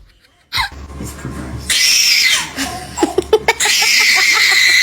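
Two long, shrill screams, the second longer, with short sharp cries between them.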